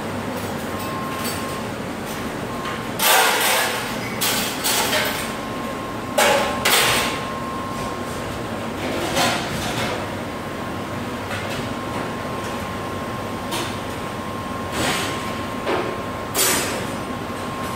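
MEIKO commercial conveyor dishwasher running with a steady wash noise, broken every few seconds by loud clattering knocks of dishes and racks.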